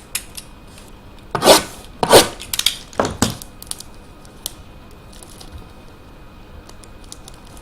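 A box of hockey cards being torn open by hand: three short, scratchy bursts of tearing and scraping of cardboard and wrapping in the first few seconds, then only small clicks of handling.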